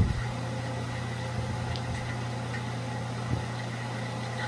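ILG Model 123-XQ explosion-proof fan running steadily at full speed on its 1/20 HP, 1725 RPM split-phase motor: a steady low motor hum with the rush of air from the three spinning blades.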